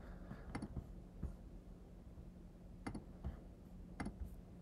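Faint, separate clicks of a laptop trackpad, about five over four seconds, over a low room hum.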